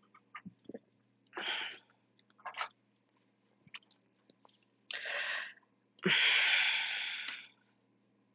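A person breathing out hard through the mouth four times, the last breath the longest and loudest, with small wet mouth clicks in between.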